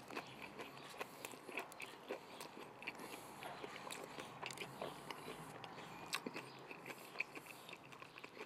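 A person chewing a mouthful of chicken burger close to the microphone: quiet wet mouth sounds with many small clicks and smacks.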